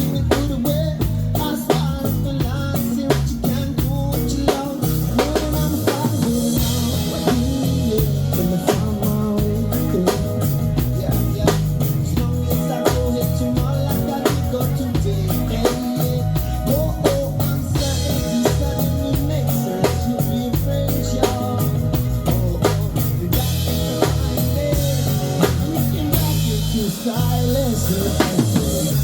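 Live band playing an instrumental stretch of a song, with the drum kit to the fore: a steady beat of snare rimshots and bass drum over bass and chords.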